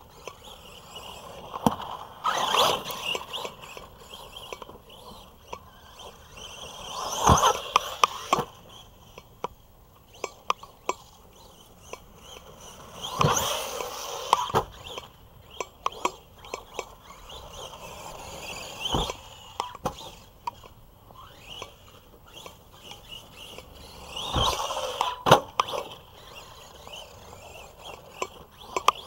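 Arrma Big Rock v3 RC monster truck's electric motor whining up and down in about five bursts of full throttle, with tyres scrabbling on dirt and several sharp knocks from hard landings after jumps.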